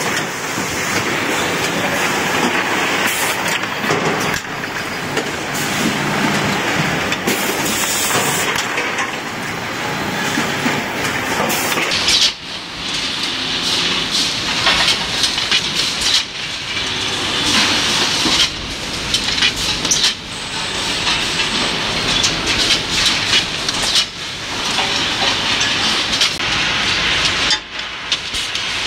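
Coupler machining machinery running: a steady metallic clatter and whir. The sound changes abruptly about twelve seconds in, then dips briefly every few seconds.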